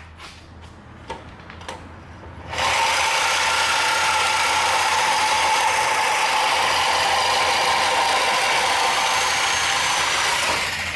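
A power cutting tool cutting through exhaust pipe to take the resonator out, starting about two and a half seconds in and running steadily with a constant high whine until near the end. A few light clicks come before it starts.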